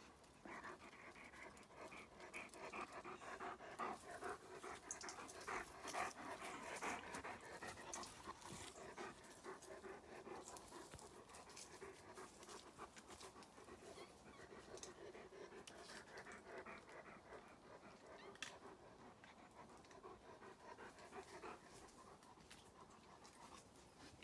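A dog panting quickly and steadily, faint, a little louder in the first half.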